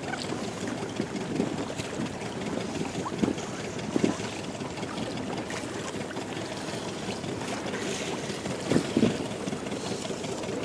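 Small inflatable boat under way: water lapping and splashing against its hull over the low, steady run of its motor, with a few dull slaps of water against the boat.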